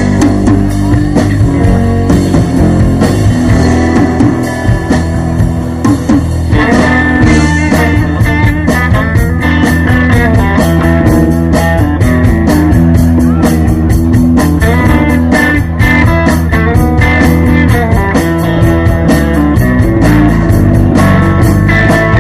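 Live blues-rock band playing through a PA: electric guitar, bass guitar and drum kit. About seven seconds in, the drumming gets busier.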